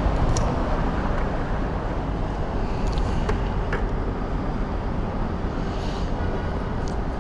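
Steady rumble of street traffic and engines, with a few faint clicks.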